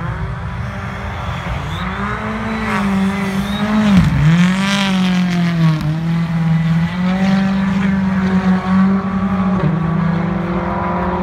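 Rally car engine revving hard, its pitch climbing and dropping again and again as the driver accelerates, lifts and shifts gear. It is loudest about four seconds in, where the pitch dips sharply.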